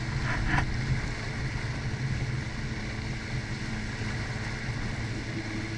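Jet ski engine idling steadily, a low even hum, as the craft creeps along off the throttle at no-wake speed. A brief sharper sound comes about half a second in.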